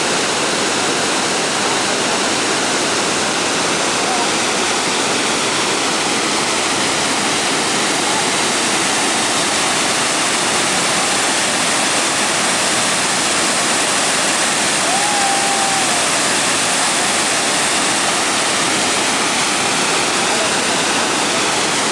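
Dudhsagar Falls in monsoon flood: a steady, loud rush of heavy water pouring and crashing over the rock face.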